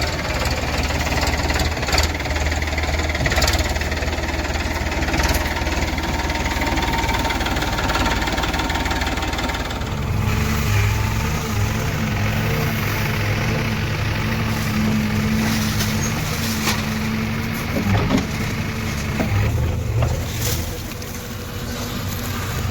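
Diesel engine of heavy machinery running steadily; about ten seconds in its note changes to a stronger, higher hum, with a few knocks later on.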